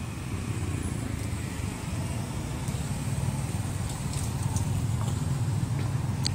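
Steady low rumble of a motor vehicle engine running nearby, with a few faint light clicks.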